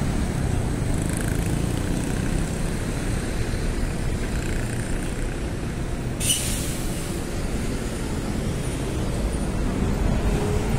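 City street traffic: a steady low rumble of passing road vehicles, with one short, sharp hiss about six seconds in.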